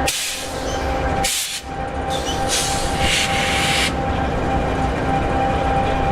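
EMD 16-710G3B, a 16-cylinder two-stroke diesel, idling steadily in an SD60E locomotive, with a constant hum. Bursts of hissing come and go during the first four seconds.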